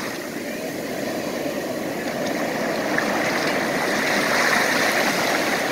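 Ocean surf: broken waves and foaming white water rushing over the shallows in a steady wash that swells a little louder past the middle.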